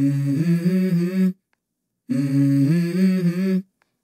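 A low voice humming a short phrase that steps up in pitch partway through, heard twice, each about a second and a half, with a silent pause between.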